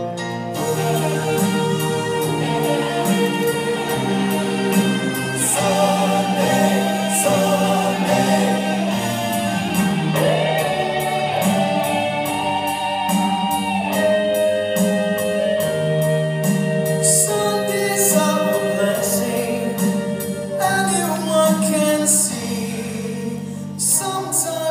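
Gospel song with singing over instrumental backing and a steady beat.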